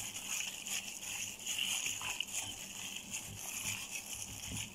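A gloved hand mixing raw chicken pieces with a wet herb-and-spice marinade in a bowl: continuous irregular wet squishing and sloshing.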